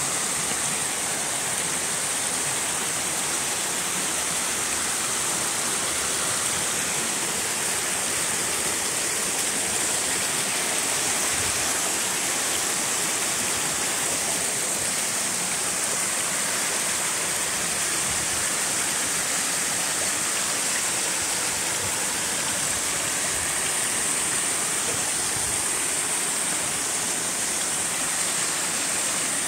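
Waterfall cascading over rock ledges into a plunge pool: a steady, unbroken rush of falling water with a bright hiss.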